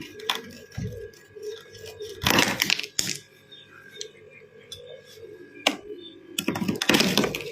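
Freezer frost and thin ice crunching close up, in two loud crackling bursts about two seconds in and near the end, with small brittle clicks and crackles between them.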